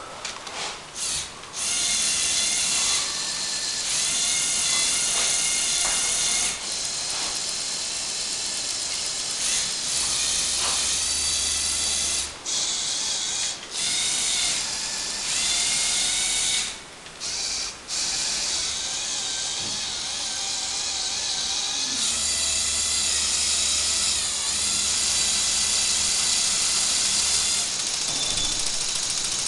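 Lego Technic Power Functions electric motors whirring through plastic gearing as the model crawler excavator is worked, running for long stretches and stopping briefly a few times in the middle.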